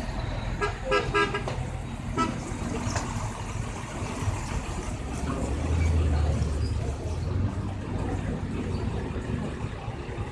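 Road traffic: a few short vehicle horn toots about a second in and another around two seconds, over a steady low engine rumble that swells midway as a vehicle passes.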